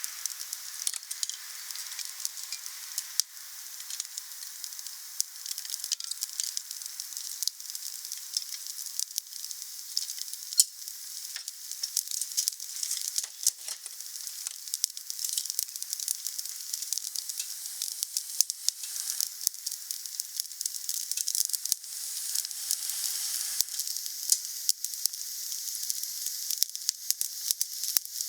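Wood fire burning, with a steady hiss and dense crackling of small sharp pops, and one louder pop about ten seconds in.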